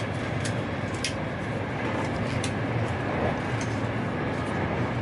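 Frecciarossa high-speed train running, a steady rumble with a few sharp, irregular clicks.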